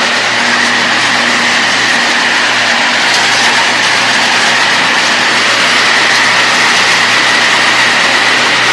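Mechanical coffee dryer running steadily while being loaded with coffee: a loud, constant machine noise with a steady whine and a low hum.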